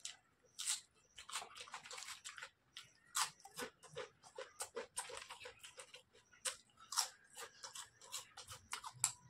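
Close-up chewing of crisp potato chips mixed with rice: many sharp, irregular crunches one after another.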